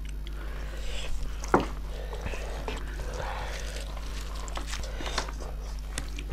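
Eating snail curry: chewing and mouth noises with scattered sharp clicks, the loudest about one and a half seconds in, over a steady low electrical hum.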